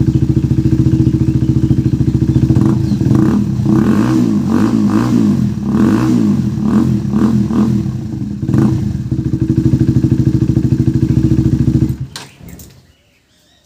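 Motorcycle with an SC Project aftermarket exhaust idling, then revved in a string of short throttle blips, back to a steady idle, and switched off about twelve seconds in.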